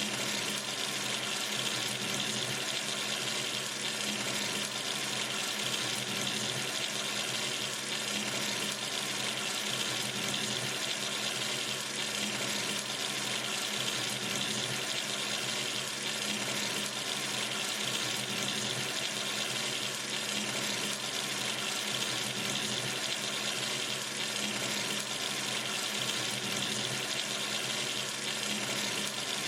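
Water running steadily from a sink tap into the basin, a constant even hiss with no change.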